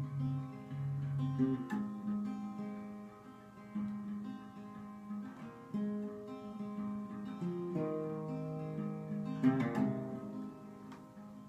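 Guitars playing an instrumental opening: chords struck about every two seconds and left to ring.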